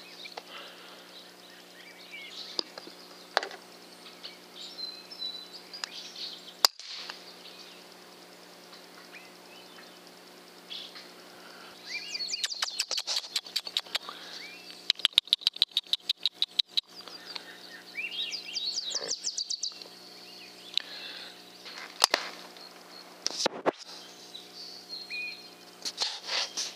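Songbirds chirping and calling, with a fast rattling run of notes in the middle. About 22 seconds in comes a single sharp crack, the shot of a PCP air rifle hitting its quarry hard.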